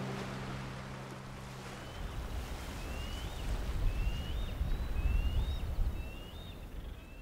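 A held music chord ends about two seconds in, giving way to wind rumbling on the microphone over the surf. Over it come short, high, rising bird chirps about once a second, until all fades out at the end.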